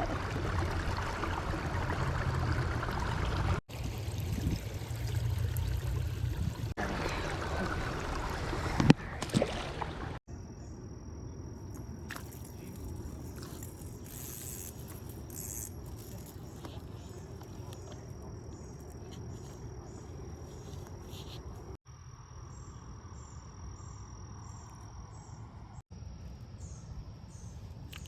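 Creek water trickling and running. About ten seconds in, the sound drops to a quieter trickle, joined by a steady high-pitched insect drone, with short repeated high chirps near the end.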